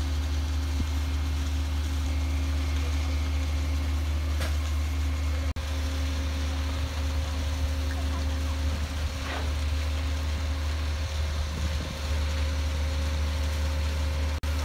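Diesel engine of a truck-mounted concrete boom pump running steadily while pumping, a loud low drone with a steady hum above it. The sound drops out briefly twice.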